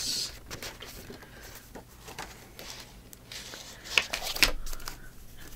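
Hands flipping over and handling a wire-bound paper journal: soft rustling and brushing of card and paper, with a couple of sharp taps about four seconds in.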